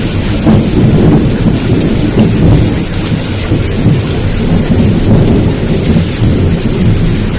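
Heavy downpour with thunder rumbling: a loud, continuous low rumble that swells and eases over the steady hiss of rain.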